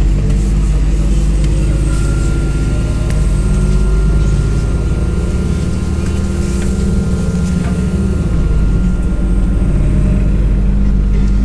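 Inside a MAZ-203 city bus under way: its diesel engine runs with road noise. A thin, steady high tone comes in about two seconds in.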